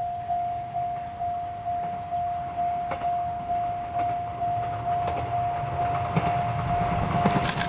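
Japanese level-crossing warning bell ringing steadily at about two dings a second as an Izu-Hakone Railway 3000-series electric train approaches. The train's rumble and wheel clicks build in the last second or two.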